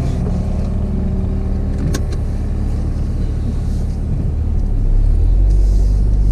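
Cabin sound of a 2016 Volkswagen Golf R's turbocharged 2.0-litre four-cylinder running, with a seatbelt buckle clicking shut about two seconds in. Near the end the engine sound grows louder as the car is readied for a launch-control start.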